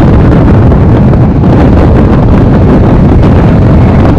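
Heavy wind buffeting a microphone held out of a moving train's coach window, steady and loud, with the train's running noise on the track underneath.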